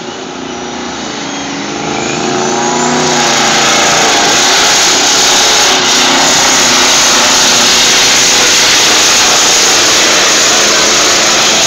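Pulling semi truck's diesel engine revving up under full load as it drags the sled, its pitch rising over the first few seconds, then running flat out, loud and steady.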